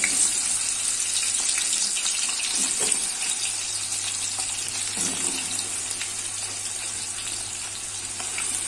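Sliced onions sizzling in hot oil in a large cooking pot: a steady hiss with small crackles that eases a little toward the end.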